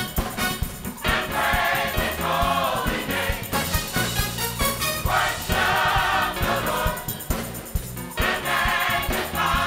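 Gospel choir singing with instrumental accompaniment over a steady beat.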